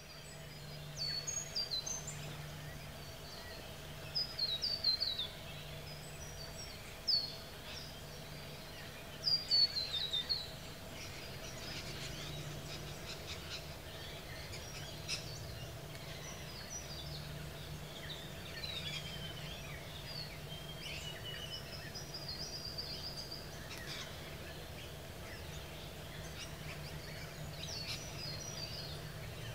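Wild birds calling: short bursts of quickly falling chirps, loudest and most frequent in the first ten seconds, over a steady low hum.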